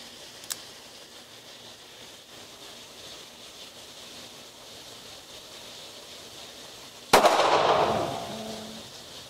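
A light click about half a second in, then a single shot from a Smith & Wesson 637 .38 Special snub-nose revolver, fired single action with the hammer cocked, about seven seconds in. The shot is sharp and loud, with an echoing tail from the indoor range that dies away over about a second and a half.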